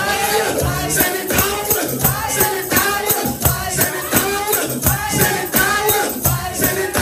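Live gospel praise music in a church service: singing over a band with a fast, steady beat.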